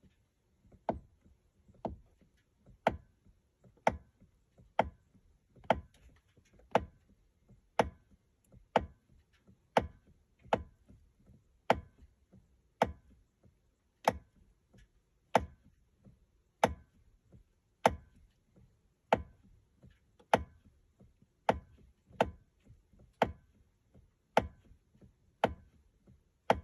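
Sharp, regular clicking from the steering wheel of a BMW E65, about one click a second. The owner does not know its cause.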